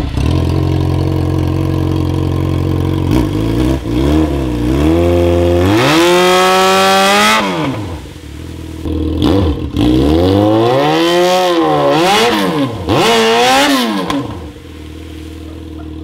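Yamaha XJ6 motorcycle's inline-four engine idling, then revved hard and let fall several times, the pitch climbing in long sweeps about four seconds in and again from about ten seconds, settling near the end. Its rear wheel spins at the pool's edge during the revs, adding a hiss of thrown water.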